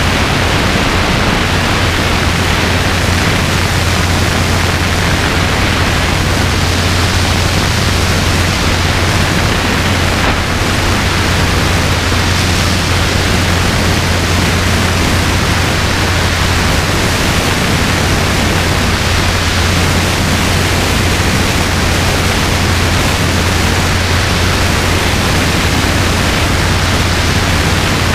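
Robinson R22 helicopter in flight, heard from the cabin: a steady, loud rushing noise over a constant low drone.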